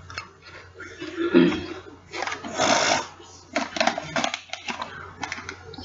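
Pringles potato chips crunching in the mouth, with short crackly bursts near the middle and a brief low vocal sound about a second and a half in.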